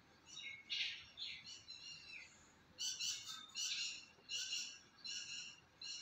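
Bird calls: a few short high chirps at first, then from about halfway a regular series of bright calls, roughly one every three quarters of a second.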